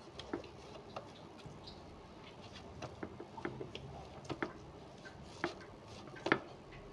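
Hands patting and kneading oiled paratha dough in a plate, making faint, irregular soft taps and light slaps.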